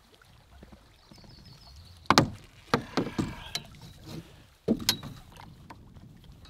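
A snagged, waterlogged stick hauled into a canoe on a fishing line, knocking against the hull: one loud knock about two seconds in, a quick cluster of clunks a second later and two more near the end, over a low hum of wind and water.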